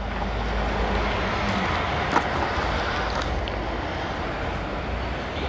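Gasoline pumped from a station nozzle into a motorcycle's fuel tank: a steady rushing hiss that starts right at the beginning, with a low rumble underneath.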